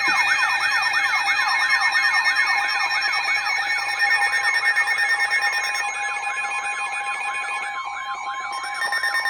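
Emergency alert attention signal: steady alarm tones layered with fast, overlapping rising-and-falling siren-like wails, loud and continuous. The mix changes slightly about eight seconds in.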